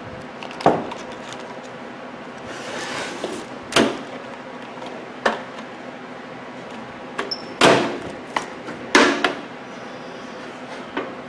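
Several sharp knocks and clunks, about five spread out, from things being handled and set down, over a steady low hum.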